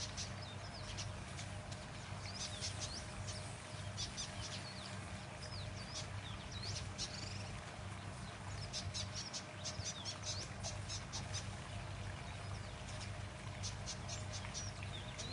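Birds chirping in scattered runs of short, high chirps with pauses between, over a steady low hum.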